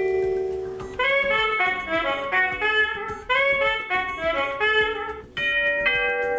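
Honeywell P-2 portable wireless door chime playing its built-in tunes: a held note rings out, then a quick melody of notes, about five a second, plays as a phrase twice over. Near the end a new chime starts with two held tones.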